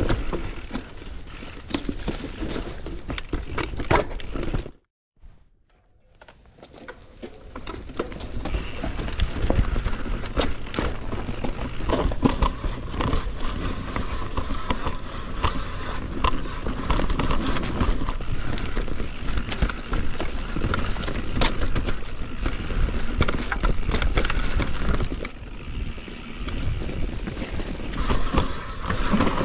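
Mountain bike riding down a rough dirt trail: tyres rumbling over dirt, roots and stones, with frequent knocks and rattles from the bike. The sound cuts out abruptly for about half a second near five seconds in, then builds back up.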